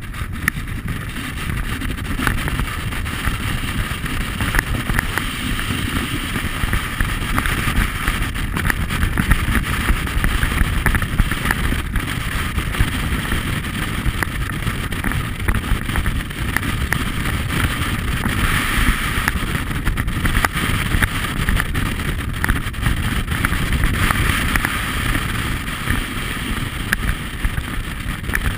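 Wind buffeting the action camera's microphone as a snowboard slides and scrapes over the snow in a steady, loud rush, the hiss swelling now and then.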